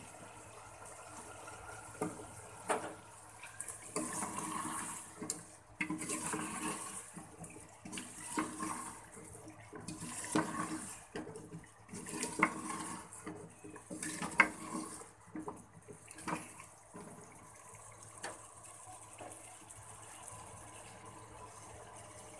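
A spatula stirring vegetable pieces through wet masala in an aluminium pot: repeated wet, squelching strokes with sharp clicks of the spatula against the pot. After about three-quarters of the way through, the stirring stops and only a faint steady hiss remains.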